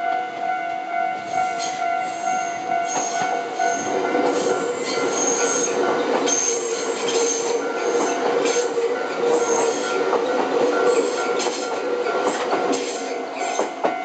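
Nankai limited express 'Koya' train pulling out of a station and passing over a level crossing on a curve. Its wheels squeal in repeated high-pitched bursts, and its wheels clack over the rail joints. The crossing's warning bell rings steadily; the train's rumble swells about four seconds in and fades near the end, leaving the bell plain again.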